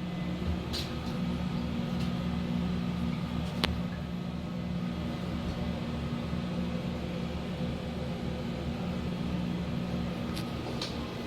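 Steady hum of a running motor, with a few sharp clicks about a second in, near four seconds, and twice near the end.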